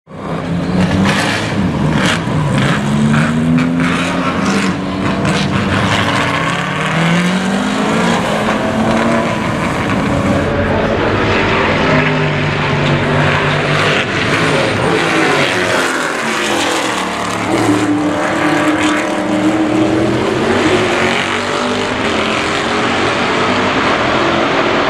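8.1-litre (496 ci) Pontiac V8 of a 1971 Pontiac Trans-Am race car at racing speed, its pitch rising and falling again and again as it accelerates and shifts. A string of sharp cracks comes through in the first few seconds.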